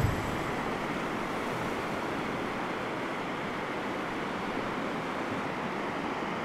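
Steady hiss of distant surf with some wind, an even wash with no single waves standing out.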